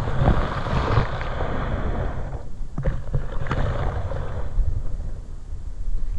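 Underwater camera housing moving through the water: a constant low rumble of water against the housing, with two stretches of rushing hiss and a few sharp knocks as it brushes through rockweed fronds.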